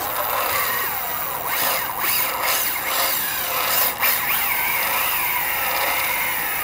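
Fishing reel's drag screaming as a big fish, which the angler takes for a shark, strips line off. The whine wavers up and down in pitch, with a few short clicks in the middle.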